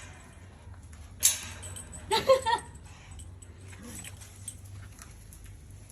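A pet animal's short cries: a quick cluster of two or three pitched calls about two seconds in, after a brief rustling noise.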